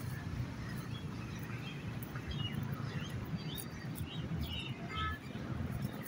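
Birds chirping: a scattered run of short calls and quick little whistles, most of them in the middle of the stretch, over a steady low rumble of background noise.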